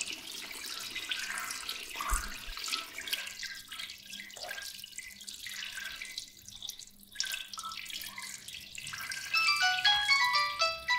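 A stream of urine splashing into the water of a toilet bowl, thinning out about nine seconds in. Near the end an electronic melody of quick falling notes starts ringing over and over.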